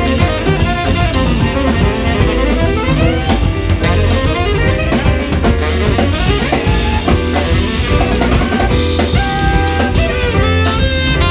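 Live jazz from a quartet of tenor saxophone, piano, bass and drums, with the drum kit to the fore.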